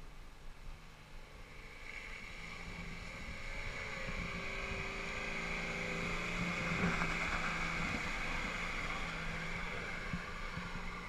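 Nissan GQ Patrol 4WD driving up a muddy dirt track, its engine getting louder as it approaches, loudest as it passes close by about six to seven seconds in, then easing slightly as it pulls away uphill.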